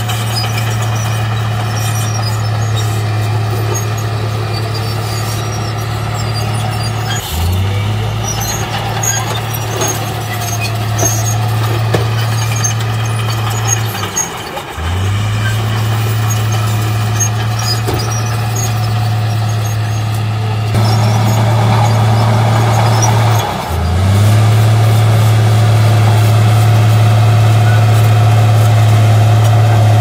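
Heavy diesel engines of a tipper truck and a crawler bulldozer running at a construction earth-fill site, a steady deep drone. The drone breaks off briefly three times and gets louder in the last third.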